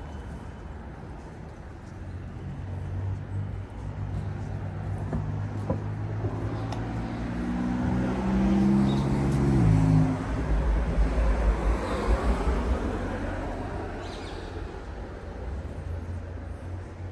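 A road vehicle's engine pulling harder, its pitch climbing for several seconds as it gets louder. About ten seconds in the pitch drops sharply and a low rumble is left, fading away.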